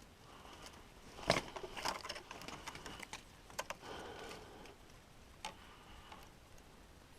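Close handling noise: one sharp knock about a second in, followed by a run of irregular small clicks and short scrapes, and a last click a little later.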